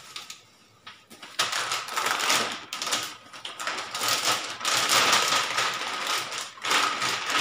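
Plastic packaging crinkling and rustling as a motherboard's clear wrapper and anti-static bag are pulled off and handled, starting about a second in and going on in dense crackling bursts.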